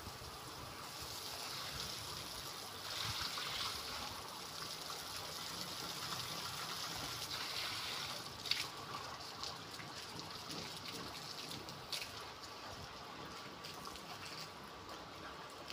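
Water running from a garden hose, its stream splashing onto a concrete floor and wall, with two sharp knocks about eight and twelve seconds in. Near the end the flow dies down to a dribble.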